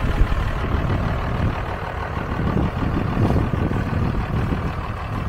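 1995 Dodge Ram 2500's 5.9 L 12-valve Cummins diesel engine idling with a steady low sound.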